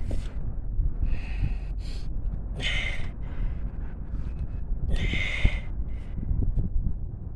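A person breathing heavily close to the microphone, a breath about every two seconds, over a steady low rumble.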